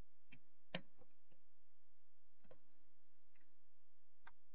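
Faint, irregular clicks and light taps of small metal tool tips against tiny surface-mount capacitors and the circuit board during micro-soldering, about six in all, the sharpest about three-quarters of a second in.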